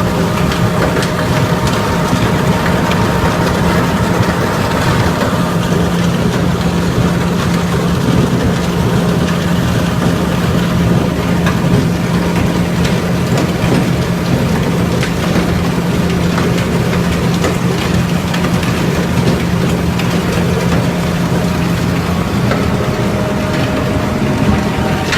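Ultrafine powder grinding mill plant running: a loud, steady machine noise with a constant low hum.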